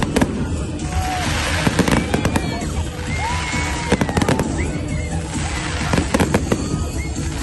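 Fireworks going off in quick clusters of sharp bangs and crackle over show music playing.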